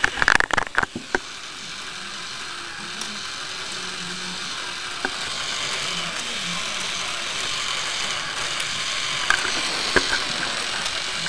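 Plastic K'nex model V6 engine with a Roots-type supercharger running: its gears, chain and belts whirring with a steady clicking rattle that grows a little louder. A cluster of sharp knocks comes in the first second.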